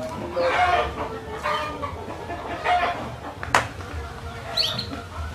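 Birds calling: harsh, clucking-type calls about once a second, a sharp click midway, and a quick run of high chirps near the end.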